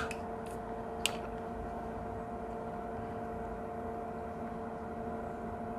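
Steady electrical hum holding a constant pitch, with two or three small sharp clicks in about the first second.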